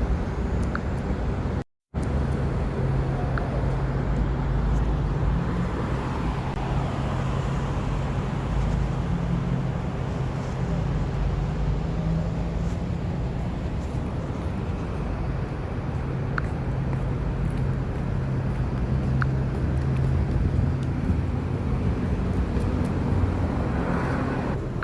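Steady road traffic noise with a constant low hum, with vehicles passing, swelling about six seconds in and again near the end.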